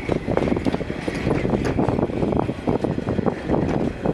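Narrow-gauge steam train hauled by 2-10-2 tank locomotive 99 7238-1 moving along the track: a steady low rumble with dense, irregular clatter from the carriages running past.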